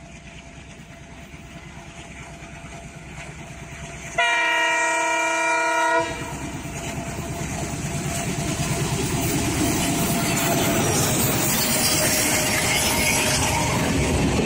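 EMD diesel locomotive hauling an express train, approaching and growing louder. It sounds its horn once for about two seconds, around four seconds in. Then the locomotive and coaches pass close with loud engine and wheel-on-rail noise.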